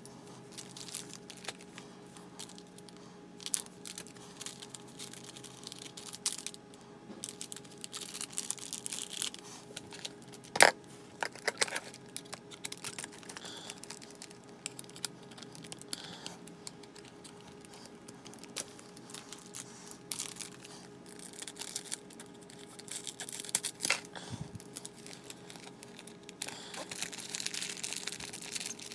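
A foil Pokémon card booster pack being torn open and crinkled by hand, with irregular crackles and a sharp snap about ten seconds in, over a faint steady hum.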